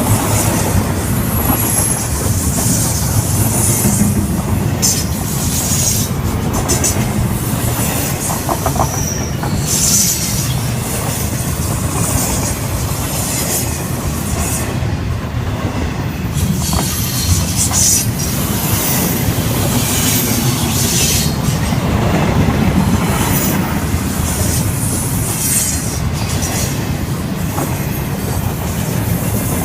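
Freight train cars rolling past with a continuous low rumble and clatter of wheels on rail. High-pitched wheel squeal comes and goes throughout.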